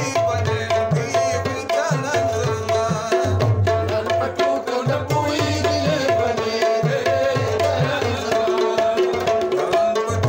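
Pashto folk song: a man singing to a steady tabla rhythm. The bass drum's strokes slide in pitch, and a short ringing note repeats over them.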